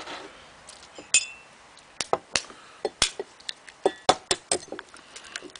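Sharp, irregular taps and clinks, a dozen or more starting about two seconds in, as an egg's shell is cracked and broken open over an enamel bowl.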